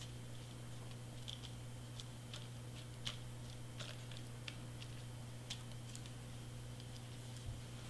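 Faint, scattered taps and soft rustles of hands pressing and smoothing a glued cardstock piece flat onto a paper craft, over a steady low electrical hum.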